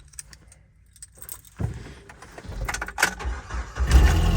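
Keys jingling and clicking, then a vehicle engine starting near the end and settling into a steady idle.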